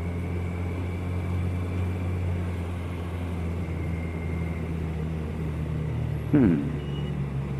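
Kawasaki ER-6n's parallel-twin engine running steadily, heard from the rider's helmet camera, with a brief falling sound about six seconds in.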